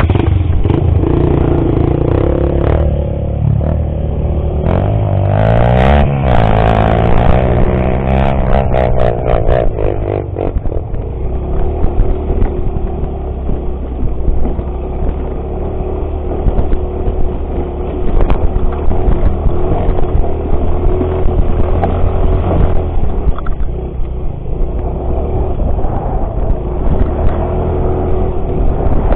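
Off-road motorcycle engine running, revving up and down for a few seconds about five seconds in, then pulling along steadily, with scattered clattering knocks.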